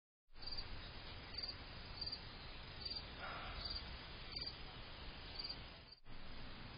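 A cricket chirping at night, short high chirps repeating evenly about once every second, faint over a steady hiss.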